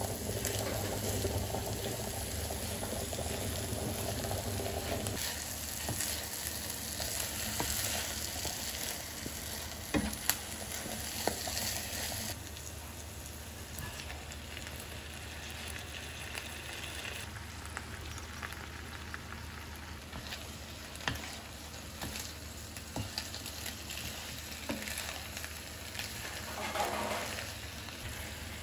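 Blood sausage and chopped onion sizzling steadily as they fry in butter in a pan, stirred and scraped with a wooden spatula. A few sharp knocks come about ten to eleven seconds in, and later boiled pasta shells are tipped in and stirred through the sizzling mixture, with scattered light clicks.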